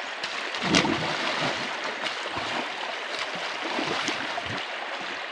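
Shallow creek water running steadily over stones, with a loud splash about a second in as a child jumps into the water, followed by a few smaller splashes.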